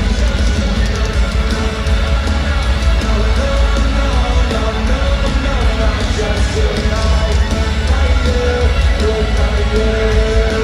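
Live pop-punk rock band playing loudly, with heavy bass and sustained pitched notes under a singing, yelling voice.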